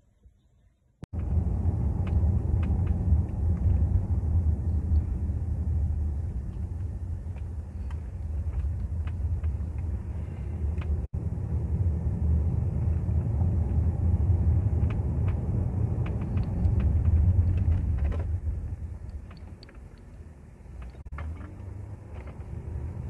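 Road and engine rumble heard inside a moving car's cabin: a steady low drone that starts suddenly about a second in and eases off for a while near the end.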